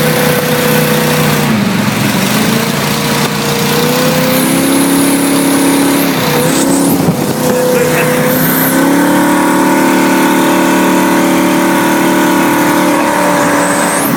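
Oldsmobile 455 V8 in a 1973 Sidewinder jet boat running under load. Its pitch drops and climbs again twice as the throttle is worked, then it holds a steadier, higher speed for the second half.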